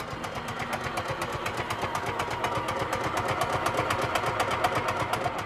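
Canadian Westinghouse air compressor under a 1928 CC&F streetcar running in a fast, even chug of about ten strokes a second, growing a little louder. It is pumping up air for the car's air brakes.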